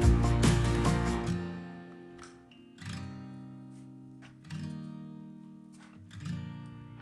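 Background music: acoustic guitar, busy and rhythmic for the first second or so, then single strummed chords left to ring out and fade.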